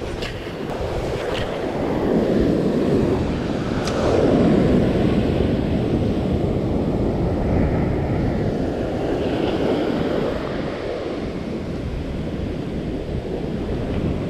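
Ocean surf breaking and washing up a sandy beach, swelling and easing, with wind rumbling on the microphone.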